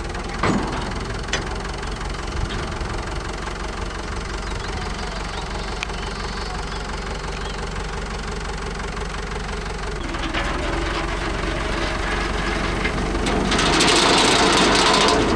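Farm tractor's diesel engine running steadily, with a few sharp clicks in the first seconds; the sound grows louder and noisier from about ten seconds in, loudest near the end.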